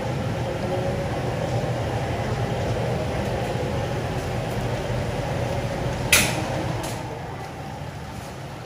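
Model train running along its track: a steady rumble that eases off over the last couple of seconds, with one sharp click about six seconds in.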